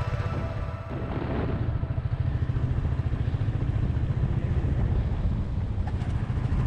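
A vehicle driving along a road: a steady low engine and road rumble.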